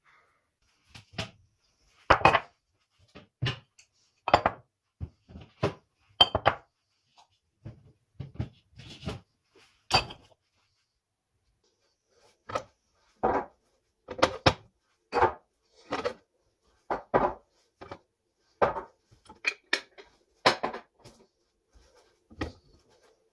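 Kitchen containers and dishes being handled and set down: a series of separate short knocks and clinks, with a brief pause about halfway through.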